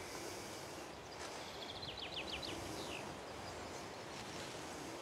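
Faint steady outdoor ambience with wind on the microphone. About two seconds in, a small bird sings a quick run of short, high chirps.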